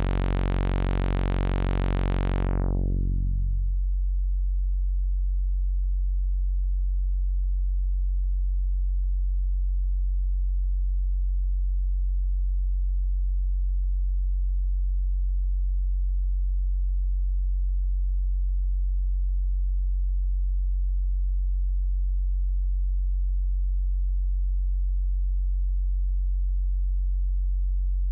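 Low synthesizer drone from the u-he Bazille soft synth. It starts bright and buzzy, loses its upper harmonics over the first three or four seconds, and then holds as a steady deep, near-sine hum.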